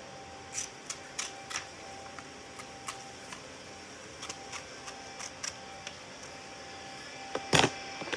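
Small scissors snipping through stiff blue paper in a string of short, irregular cuts, with one louder handling noise near the end.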